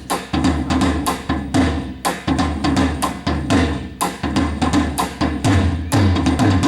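Korean traditional percussion ensemble drumming a fast, driving rhythm, with buk drums giving deep repeated tones under dense sharp strikes.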